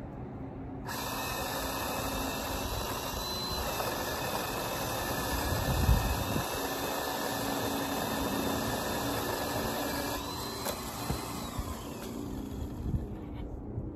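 RYOBI electric pole saw's motor and chain starting about a second in, running steadily with a faint high whine that shifts in pitch a couple of times, then cutting off near the end. A low thump about six seconds in.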